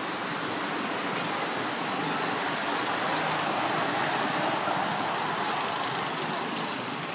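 Steady rushing outdoor background noise that swells for a few seconds midway and then eases off.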